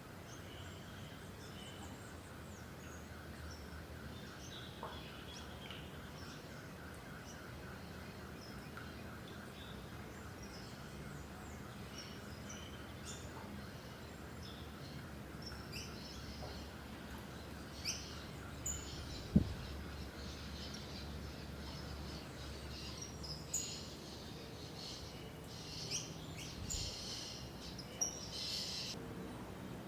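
Small birds chirping and calling, with many short high notes that grow busier in the second half over a steady background hiss. A faint fast pulsing trill runs through the first half, and a single sharp knock about two-thirds through is the loudest sound.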